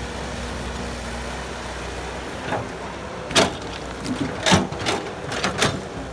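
A heavy diesel engine running with a steady low hum. From about halfway in come about five sharp knocks, the loudest a little past halfway.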